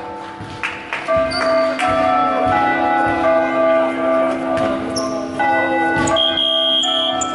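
Bell-like music playing in a basketball gym, its held notes changing about a second in and again near the middle, with knocks and short high squeaks from play on the court.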